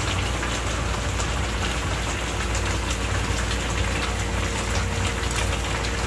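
Red-wine and tomato braising liquid around beef short ribs bubbling hard in a metal roasting tray on gas burners: a steady crackling hiss over a low rumble, with a faint steady hum.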